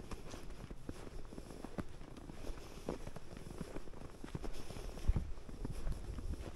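Footsteps in fresh snow, an irregular run of soft steps.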